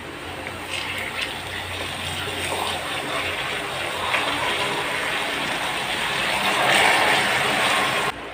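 Water poured into hot caramelized sugar in a frying pan, hissing and bubbling violently as the caramel boils up and is thinned into syrup. The sizzle builds, is loudest about seven seconds in, and then cuts off suddenly.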